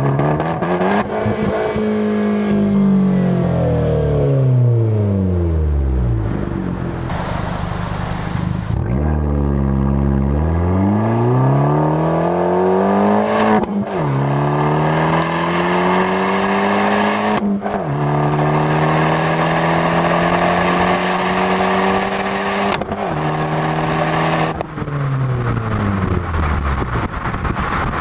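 Fiat 500 Abarth's turbocharged 1.4-litre four-cylinder and exhaust under way: the revs rise and fall, then climb through two upshifts, each a sudden drop in pitch, about 13 and 17 seconds in. The engine holds steady for a few seconds, then the revs fall away in steps as the car slows near the end.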